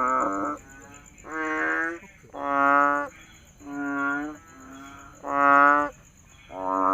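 Frogs calling: long, pitched, cow-like calls repeated about once a second, with two calls overlapping at the start and near the end. A faint, steady high-pitched pulsing trill runs underneath.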